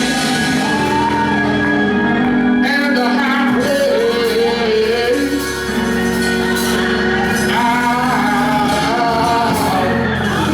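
Live gospel worship music: a church band playing while voices sing long held notes.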